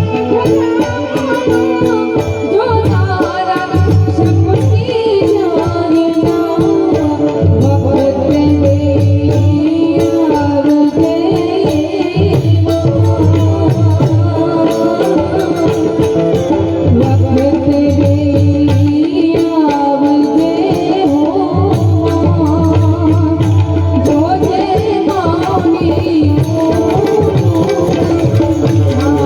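Loud Indian folk music played over a DJ sound system: tabla-style drumming, steady held keyboard-like tones, and a voice singing.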